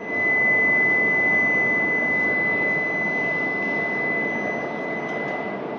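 E5/H5-series Shinkansen train running past along the platform: a loud rushing noise with a steady high whine over it, both easing slowly near the end.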